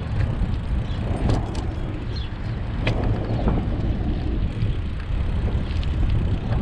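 Wind rushing over the microphone of a moving bicycle, with a steady low rumble of tyres on an asphalt path. A few brief high chirps break through now and then.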